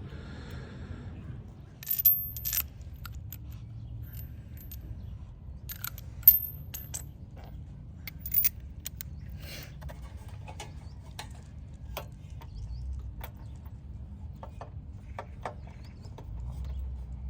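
Metal hand tools and parts being handled: a few sharp metallic clinks with a high ring, the loudest about two seconds and six seconds in, and scattered small clicks and rattles between.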